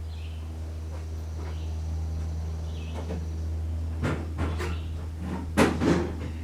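A few sharp knocks and clatters, the loudest about two seconds before the end, over a steady low hum.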